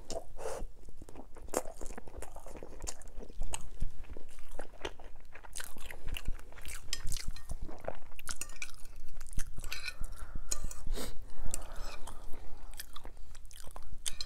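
Close-miked chewing with crisp crunches as sopes are eaten, the fried masa bases crackling between the teeth and under a fork cutting through them.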